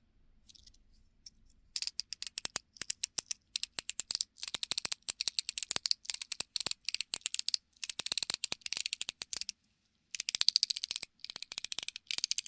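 Metal EDC fidget toy being clicked by hand in fast runs of sharp, crisp clicks, starting about two seconds in, with a short pause near the end.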